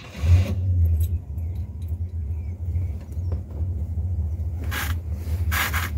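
Rover P6 engine idling while warming up, a steady low rumble heard from inside the cabin. Two brief scuffing noises near the end.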